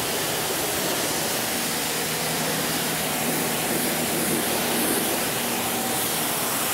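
Pressure washer spraying a high-pressure jet of water onto a car's body panels: a steady, loud hiss of spray with a faint steady hum beneath. This is the high-pressure pre-rinse that knocks loose the heavy dirt before foaming.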